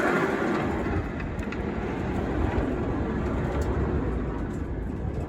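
Portable band sawmill running steadily, its engine rumbling under a continuous mechanical noise.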